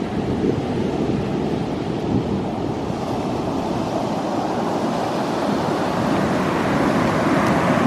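Ocean surf breaking and washing on the beach, a steady rushing noise with wind buffeting the microphone. It swells louder near the end.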